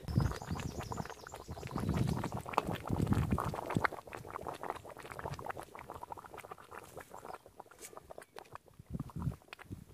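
Thick goat head gravy boiling in a large pan, a dense run of small bubbling pops and plops. Low rumbles swell under it near the start, for a couple of seconds from about two seconds in, and again near the end.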